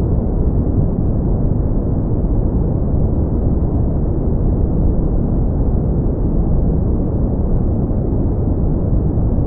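Steady brown noise: an even, deep hiss, heaviest in the bass and fading away toward the treble, with no change throughout.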